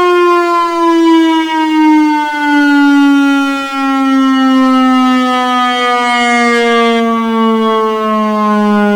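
Severnside warning siren sounding in its routine test, a single loud wailing tone with many overtones whose pitch slides slowly and steadily lower, winding down.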